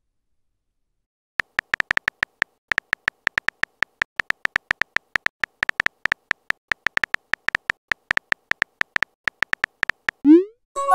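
Texting-app keyboard clicks: quick, irregular short ticks as a message is typed out letter by letter, starting about a second and a half in. Near the end a short rising swoop tone sounds as the message is sent.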